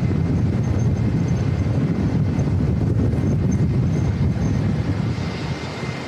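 Steady low rumble with no clear pitch or rhythm, easing slightly near the end.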